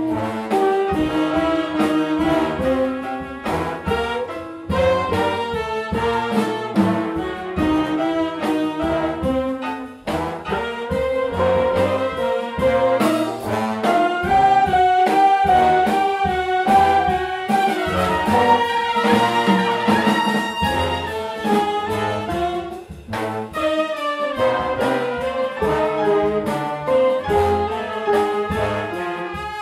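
Big jazz band playing a full ensemble passage: trumpets, trombones and saxophones sound sustained, shifting chords over drums.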